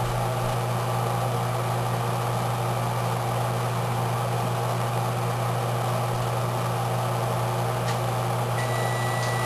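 Steady hum of a room air conditioner running, with a strong low drone. Near the end a faint high electronic beep sounds for under a second, typical of an oven signalling that it has finished preheating.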